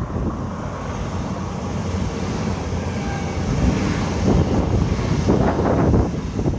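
Wind buffeting the phone's microphone: a loud, uneven rumble that swells in gusts, strongest around four to six seconds in.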